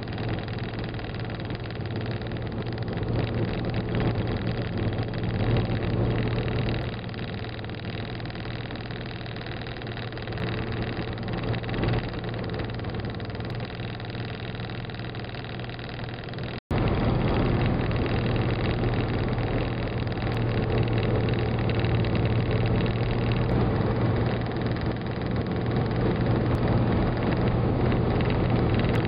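Car interior noise while driving at highway speed: a steady engine and road drone. It drops out for an instant a little past halfway, then comes back louder.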